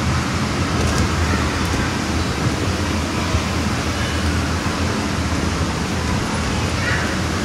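Steady rushing noise of the electric air blowers that keep the inflatables up, with a low hum underneath.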